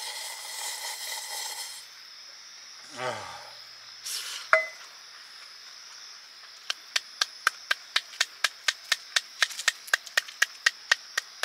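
One person clapping hands steadily, about four claps a second, starting a little past halfway. Before that, broth is slurped from a small camping pot and a short vocal sound follows, over a steady chirping of crickets.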